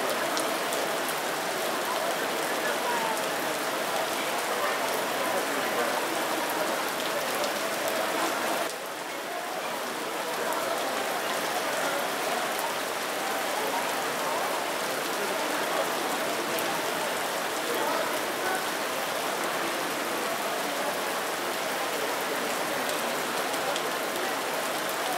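Small stream babbling and splashing over rocks: a steady rush of running water, briefly quieter about nine seconds in.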